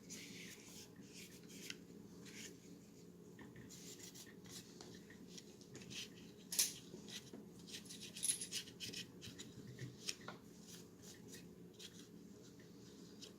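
Cleaning patch rubbing and scrubbing against a polymer Glock pistol frame, with small handling clicks and taps of the frame. A sharper click comes about six and a half seconds in.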